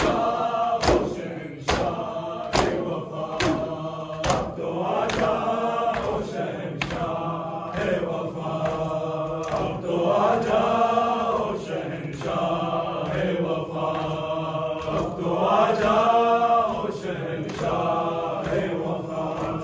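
A crowd of men chanting a noha, a Muharram lament, together in unison phrases. Sharp chest-beating slaps of matam keep a beat about once a second.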